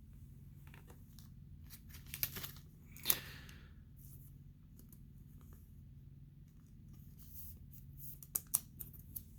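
Trading cards being slid into plastic sleeves: a few soft clicks and rustles, with a brief scraping rustle about three seconds in and a cluster of clicks near the end, over a faint steady hum.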